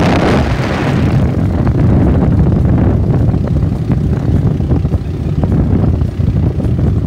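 A boat's motor running, with wind rumbling on the microphone. A louder rush of noise in the first second or so fades away.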